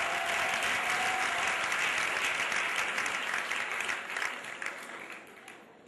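Audience applauding a graduate, the clapping dying away over the last second or two.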